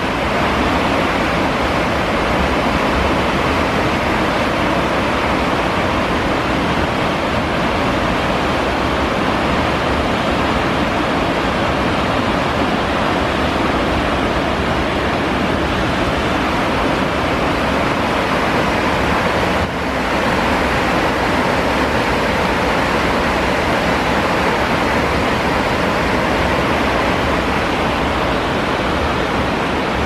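Steady rushing of churning water in a ship's wake, the foaming propeller wash behind the stern, with a low rumble underneath.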